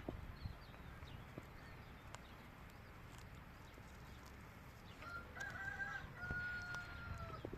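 A rooster crows once about five seconds in, a broken start followed by a long held note that drops at the end, over scattered faint clicks.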